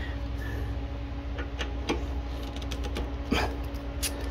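Scattered metal clicks and clinks of a socket and ratchet being fitted to and worked on a carburetor mounting bolt, a few separate clicks rather than a fast run, over a steady low hum.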